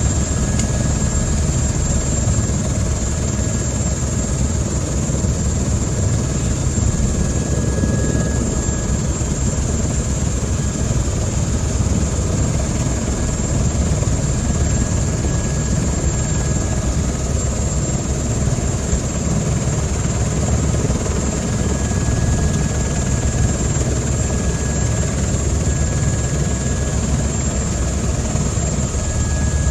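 Helicopter's engine and rotor running steadily: a loud, even rumble with a steady high whine on top.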